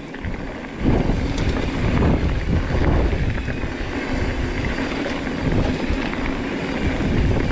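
Wind buffeting the camera microphone, with the rumble and rattle of a hardtail mountain bike riding fast down a dirt trail; it gets louder about a second in.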